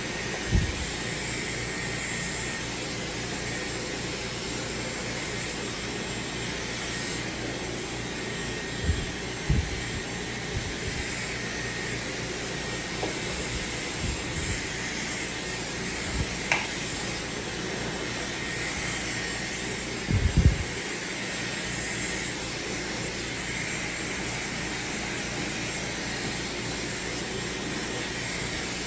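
Dyson hair dryer with a flat concentrator nozzle blowing steadily: a rush of air with a faint high whine. A few dull low thumps cut through it, the loudest about two-thirds of the way in.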